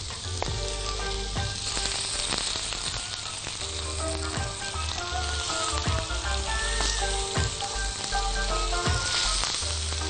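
Steak pieces sizzling in hot melted butter in a frying pan as they are laid in one by one with tongs, with a sharp click from the tongs every second or so.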